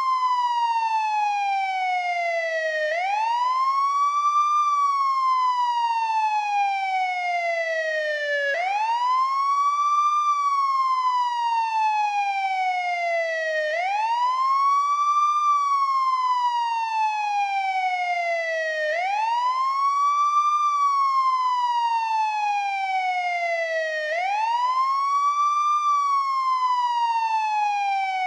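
American police siren on the wail setting: a steady tone that climbs quickly in about a second, then falls slowly over about four seconds, the cycle repeating about every five seconds.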